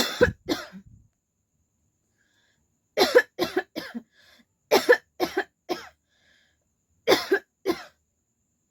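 A woman coughing deliberately in four quick bouts of two to four hard coughs each, a second or two of silence between bouts. These are forced, staged coughs for a coughing challenge, not a real coughing fit.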